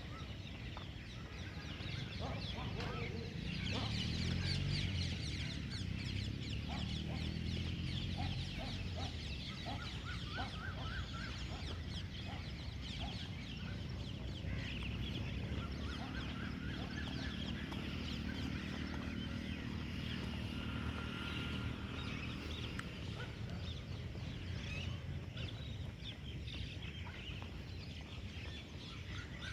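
Many birds chirping continuously, over a steady low hum with a machine-like drone that swells twice.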